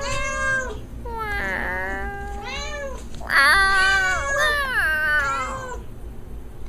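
Domestic cat meowing repeatedly, several meows in quick succession, some rising then falling in pitch, over a faint steady low hum.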